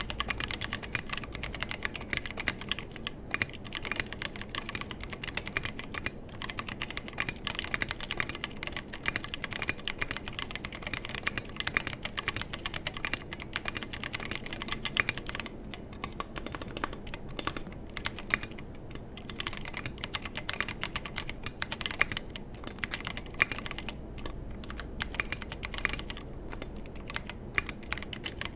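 Continuous typing on a 60% mechanical keyboard with stock Halo True tactile switches, a brass plate, SA-profile PBT keycaps and no foam, set on a deskmat. A dense stream of keystroke clacks that thins briefly a few times.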